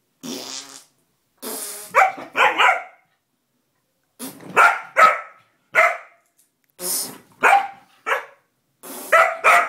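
A pet dog barking in sharp bursts and growling, reacting to short fart sounds that come in between the barks; the barks come in quick pairs and threes.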